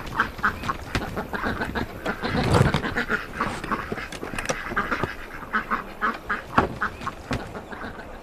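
A small flock of white domestic waterfowl calling in a quick string of short quacking calls, with a louder dull thud about two and a half seconds in and scattered knocks.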